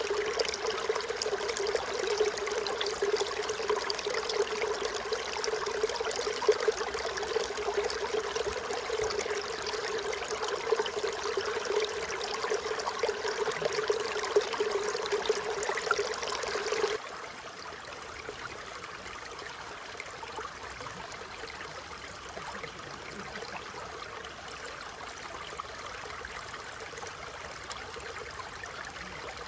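Mountain stream flowing over rocks in a forest, a steady rush of water. About two-thirds of the way through it drops suddenly to a quieter, thinner flow, as if heard at a calmer stretch of the stream.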